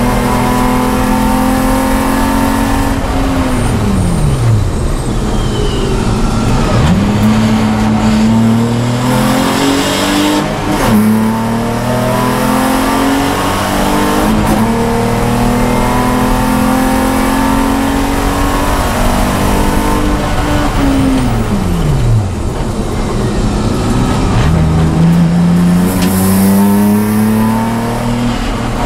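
Race car engine heard from inside the cabin at speed, its note climbing steadily under throttle. The pitch falls away sharply twice as the car lifts off, with a brief dip about eleven seconds in.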